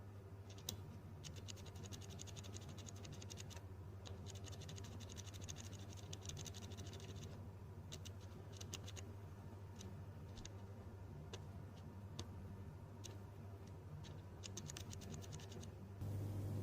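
Hands working on plastic keyboard parts: runs of fast, scratchy clicking a few seconds long, with single clicks between them, over a steady low hum.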